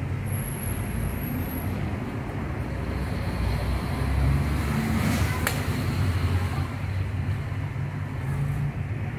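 Steady low rumble of road traffic, swelling a little midway, with a single sharp click about five seconds in.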